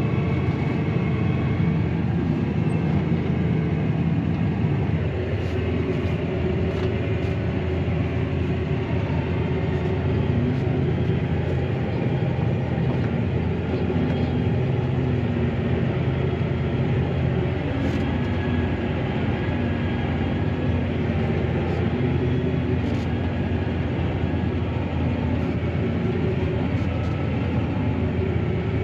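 Claas Arion 650 tractor's six-cylinder diesel engine droning steadily, heard from inside the cab while it rolls and compacts grass silage, its note shifting a little as the load changes.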